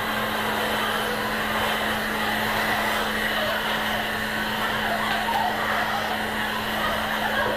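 Handheld hair dryer running steadily, a rush of air with a steady low motor hum, blowing on hair as it is brushed through.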